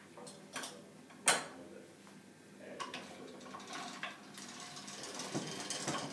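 Hand-cranked pasta machine at work: a sharp click about a second in, then a run of small clicks and a metallic rattle as the crank turns the rollers and gears.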